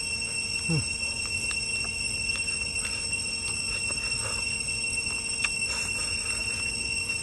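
A man eating with his hands, sucking and chewing on a piece of cooked meat, with small wet clicks and smacks and a short low 'mm' about a second in. A steady high-pitched whine runs underneath.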